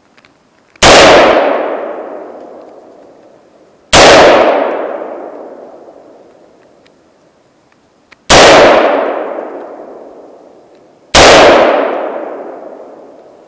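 Century Arms AR-15 (M16A1 clone) rifle in 5.56 mm firing four single, slow-paced semi-automatic shots, about three to four seconds apart. Each very loud report is followed by a long echoing tail that dies away over two to three seconds.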